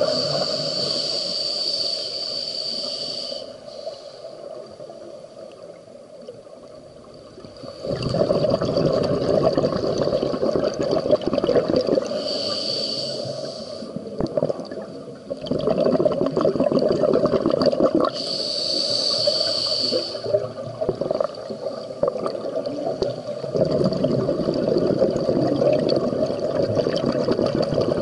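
Scuba regulator breathing heard underwater: a hissing inhalation through the demand valve, then a longer spell of exhaled bubbles rumbling past, repeated about three times.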